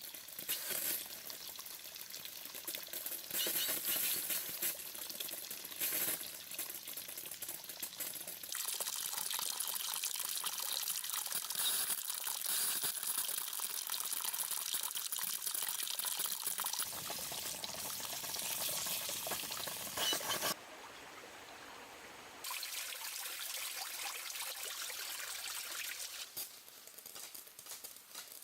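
Running, pouring water: a steady splashing rush that changes level abruptly several times.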